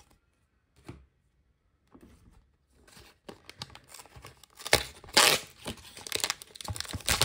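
A trading card pack's plastic wrapper being torn open and crinkled. It starts about two seconds in as crackling that grows louder, with two sharp rips, the loudest sounds, around five seconds in.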